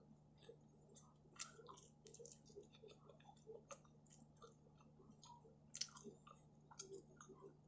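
Faint chewing of a crisp thin-crust pizza slice: scattered small crunches and wet mouth clicks at an uneven pace, a little louder about a second and a half in and near six seconds.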